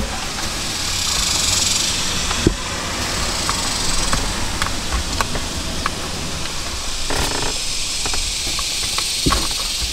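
A few light clicks and knocks of hands handling a rear-view mirror dash cam while its power cable is plugged in, over a steady high hiss.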